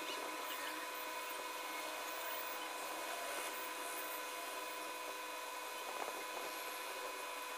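Pen scratching on paper as a few words are written by hand, faint over a steady hiss with a light hum.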